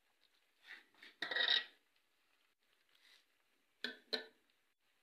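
A metal spoon scraping against a steel bowl as thick masala is spooned out onto rice. There is a short run of scrapes about a second in, the loudest part, and two brief scrapes near the end.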